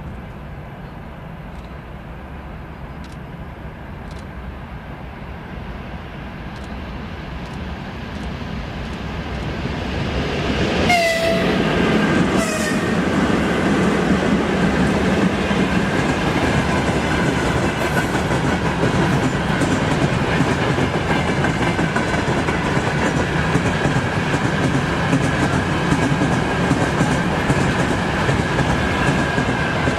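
A train approaches, growing louder, and sounds two short horn blasts about a second and a half apart. It then passes close by with steady wheel clatter on the rails.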